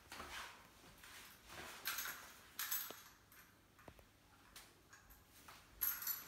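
Faint footsteps on a tiled floor: a short scuffing step about every half-second to second, with a couple of light knocks in between.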